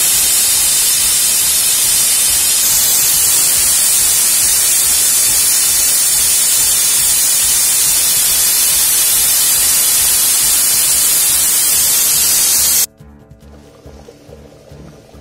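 Aluminium pressure cooker whistling: steam jets from the weight valve as a loud, steady hiss, the sign that the cooker is at full pressure. The hiss cuts off suddenly near the end.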